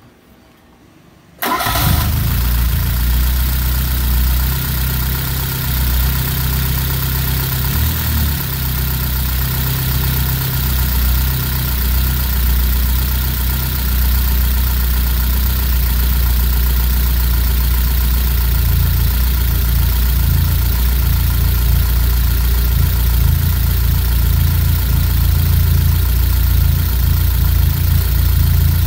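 Fiat 124 Spider's twin-cam four-cylinder engine comes in suddenly about a second and a half in, then idles steadily; its carburettor, newly raised on a riser, is still to be tuned.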